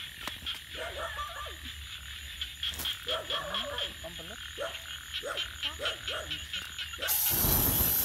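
Frogs croaking in a chorus of short, repeated calls over a high, pulsing chirp. About seven seconds in, a loud rushing hiss comes in over them.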